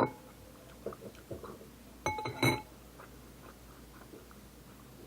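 Eating sounds: a few soft mouth and utensil noises, then a clink with a brief ring about two seconds in, like a spoon or a glass knocking on tableware.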